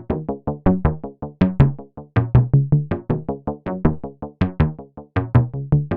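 Upbeat retro 1980s-style synthesizer music: short plucked synth notes in a quick bouncing rhythm over a bass line.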